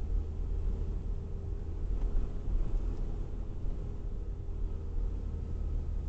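Steady low rumble of a car driving, heard from inside the cabin: road and engine noise.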